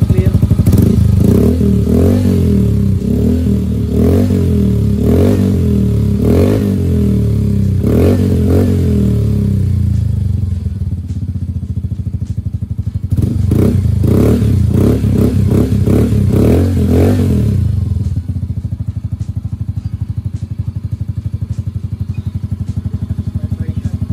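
Motorcycle engine running through an aftermarket organ chicken pipe exhaust with its silencer insert removed, so it is an open pipe. The throttle is blipped repeatedly for several seconds, the engine idles briefly, then it is revved in a faster run of short blips before settling back to idle.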